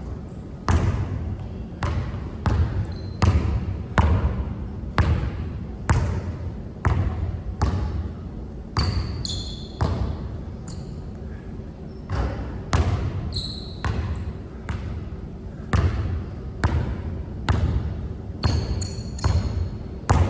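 Basketball dribbled on a court floor, about one hard bounce a second, with a few short high-pitched sneaker squeaks in the middle and near the end.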